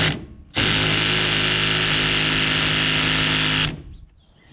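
Power tool running: a brief burst at the start, then a steady, even run of about three seconds that cuts off suddenly.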